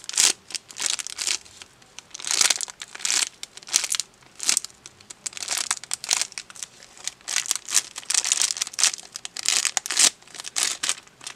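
Thin clear plastic bag around a squishy toy crinkling in irregular bursts as hands turn and squeeze it.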